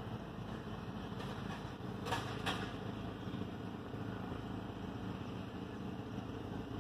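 A vehicle engine idling steadily with a low hum, with two brief noisy sounds a little after two seconds in.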